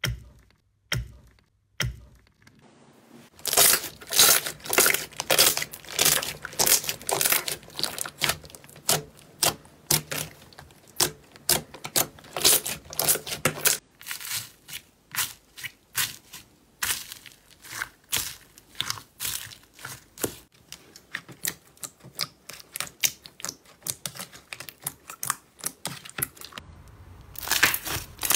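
Slime being squeezed and pressed by hand, giving quick sticky crackles and pops, several a second, with a few quieter stretches.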